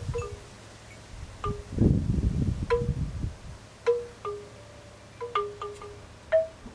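Wind chimes ringing: about a dozen single strikes at irregular intervals, each at one of several different pitches and ringing on briefly. Low rumbling, like wind on the microphone, runs under the first half.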